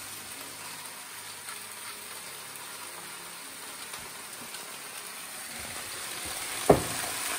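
Sliced potatoes and onions sizzling in a large pan on a gas burner, a steady frying hiss. A single sharp knock near the end.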